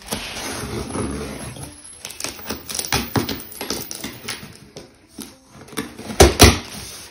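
Packing tape being cut and torn open along the top seam of a cardboard shipping box: a long tearing, rasping sound over the first two seconds, then scattered scrapes and rustles of tape and cardboard. Two loud sharp knocks on the box come just after six seconds.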